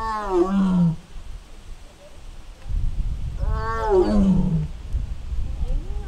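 Siberian tiger calling twice, about three seconds apart; each call lasts about a second and drops in pitch at its end.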